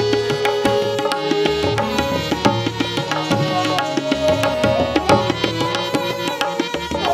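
Indian classical accompaniment for a Kathak dance: tabla playing a dense run of strokes over a held melody line.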